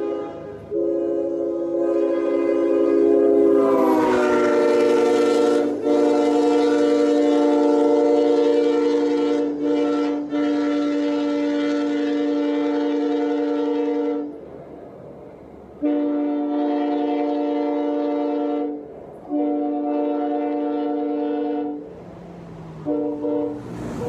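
Nathan Airchime K5HL five-chime train horn blown on compressed air, sounding a steady multi-note chord. One long blast of about thirteen seconds, its chord sagging slightly in pitch a few seconds in, then two blasts of about three seconds each and a short toot near the end.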